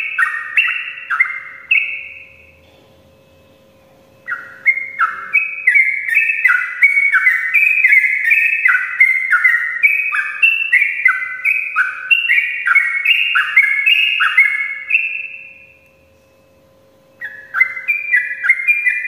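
Yellow-vented bulbul (trucukan) singing a long, fast run of falling notes in the continuous 'ropel' style. The song breaks off twice, about two seconds in and again near the end, then starts again, over a faint steady hum.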